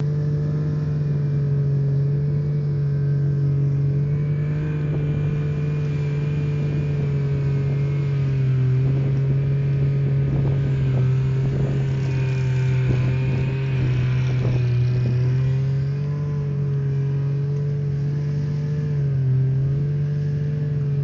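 Snowmobile engine running steadily under way, pulling a towed seat over snow. Its drone dips slightly in pitch a few times, with scattered knocks in the middle of the ride.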